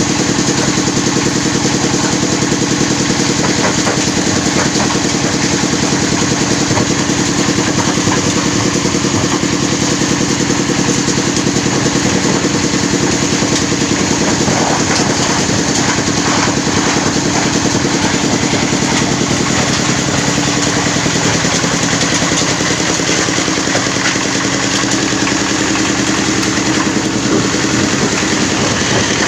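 Plastic waste sorting machine running steadily, its small engine giving a continuous, even drone with a fast regular beat.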